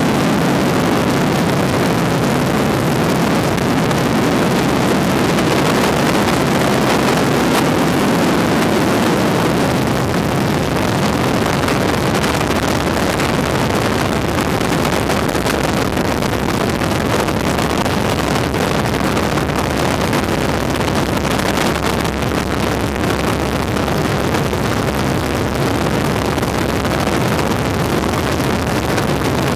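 Light aircraft in flight: the steady drone of its engine and propeller under loud, even wind rush on the microphone.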